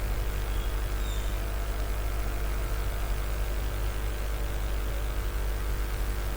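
Steady low electrical hum with a few faint fixed tones above it, unchanging throughout, from the running bench equipment.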